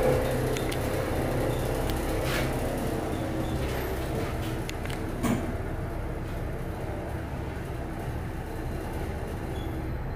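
Toshiba elevator car travelling downward, heard from inside the car: a steady rumble and hum, with a few faint clicks and a brief knock about five seconds in.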